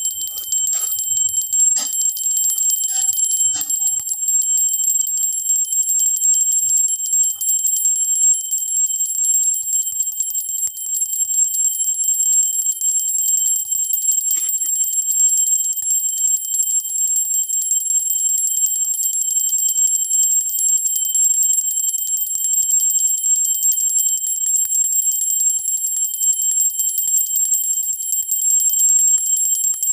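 Hindu temple bell (ghanti) rung continuously with fast, even strokes, giving a steady, high-pitched metallic ringing.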